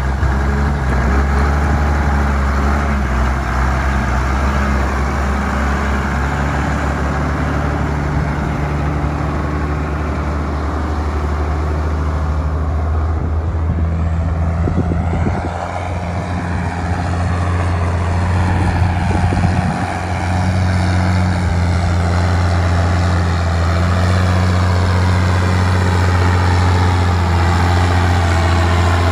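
Diesel engine of a 1995 Ford F8000 fuel tanker truck idling steadily.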